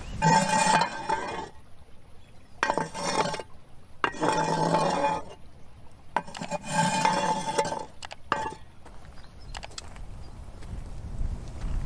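Metal-bladed oven rake on a long wooden handle scraping across the floor of a wood-fired oven, clearing embers and ash. Four strokes of about a second each with a metallic ring, then a short fifth scrape; after that only faint clicks.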